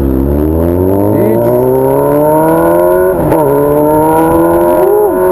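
Honda Hornet motorcycle with a 3-inch exhaust accelerating hard: the loud exhaust note climbs for about three seconds, drops at an upshift, then climbs again.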